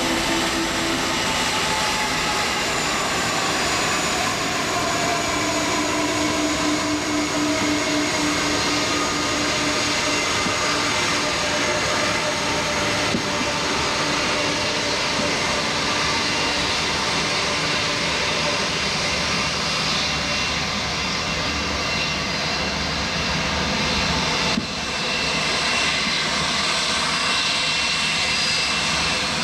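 Jet airliner engines running loud and steady at high power, a dense rushing noise with whining tones, one sliding slightly lower in pitch in the first few seconds.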